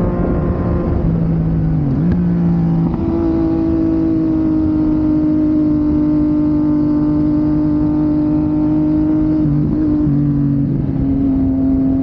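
Sport motorcycle engine pulling steadily at road speed, with a brief dip and shift in the engine note about two seconds in and again about ten seconds in, as gears change.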